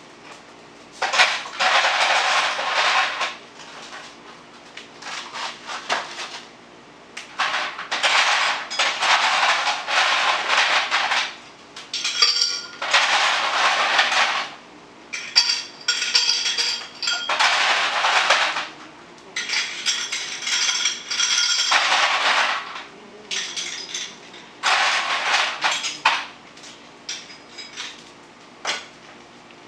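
Ice cubes rattling and clinking as they are scooped from the freezer into a glass. The rattling comes in about eight bursts of one to three seconds each, with glassy clinks in between.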